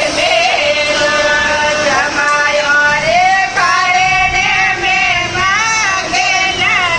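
A high female voice singing a Marwari folk wedding song for the son-in-law, a teasing 'gaali' song, in long held notes with ornamented bends in pitch.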